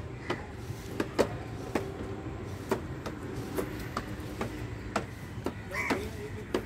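Plastic toy tricycle rolling over brick pavers: a steady low rumble from the hard plastic wheels with irregular clicks and knocks as they cross the paving joints.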